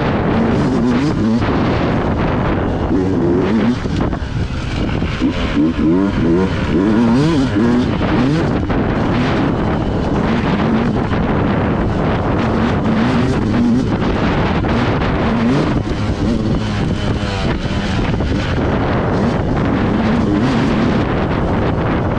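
Dirt bike engine being ridden, revving up and down over and over, with wind buffeting the microphone.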